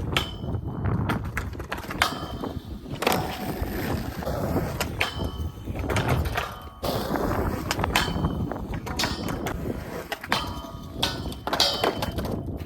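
Skateboard rolling on pavement, its wheels rumbling, broken by repeated sharp clacks and knocks of the board, some with a short metallic ring.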